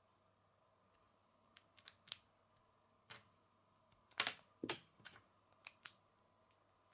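Lego plastic pieces clicking as they are handled and pressed together onto a plate: scattered light clicks, the loudest cluster about four seconds in.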